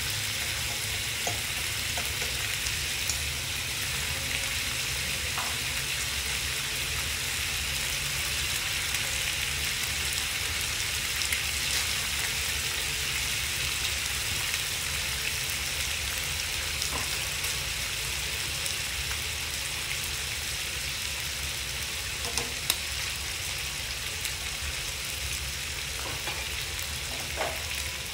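Sliced pork belly and onions sizzling in a nonstick frying pan on a gas burner: a steady hiss with a few scattered pops of spitting fat.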